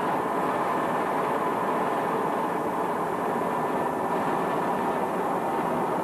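Gas jetting from a blown-out offshore well: a loud, steady rushing noise that does not change.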